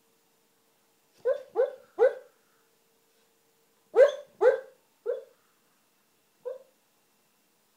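A sleeping dog barking in its sleep while dreaming: short, stifled barks, three in quick succession about a second in, three more about four seconds in, and one fainter one near the end.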